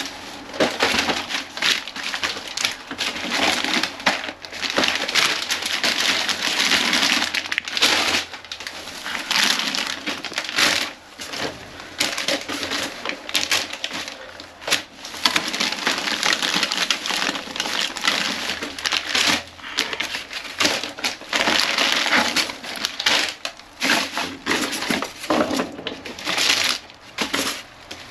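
Plastic trash bags crinkling and rustling as they are handled and knelt on, with cardboard cracker boxes being picked up and set down. The crackling comes in irregular stretches with short pauses.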